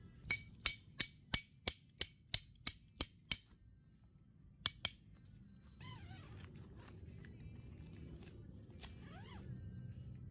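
A run of about ten sharp clicks or taps, about three a second, then a quick double click; after that a steady low hum sets in.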